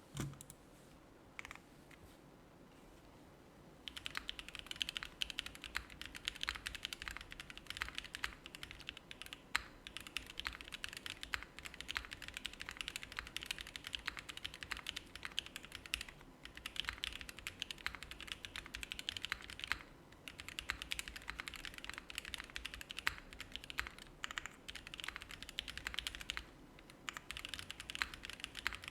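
Typing on an Aksara CE mechanical keyboard fitted with lubed and filmed linear frankenswitches (Cherry top housings, Konpeitou stems, Tangerine bottoms) on an FR4 plate with GMK keycaps, gummy O-ring mounted. A fast, continuous run of keystrokes starts about four seconds in, with a few brief pauses, over a faint steady background buzz.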